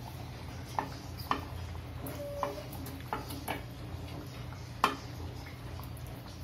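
Scattered light clicks and knocks of a non-stick frying pan against a kadhai as fried chicken pieces are pushed by hand into the gravy. The loudest knock comes about three-quarters of the way through, over a low steady hum.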